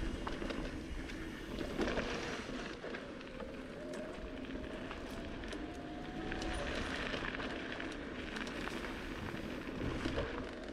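Bicycle riding over a sandy dirt trail: tyre noise and wind rumble on the microphone, with scattered small clicks and rattles. A faint thin whine runs through the middle.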